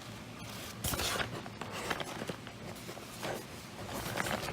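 Hands handling opened packaging and coin boxes: light rustling with scattered clicks and knocks, the loudest about a second in.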